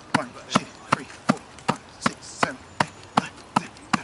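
A steady rhythm of sharp knocks or slaps, about two and a half a second, some louder than others.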